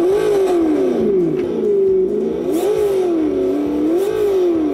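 Engine sound from the RC Dodge Challenger Hellcat's sound unit, revving up and down with the throttle, its pitch rising and falling smoothly several times.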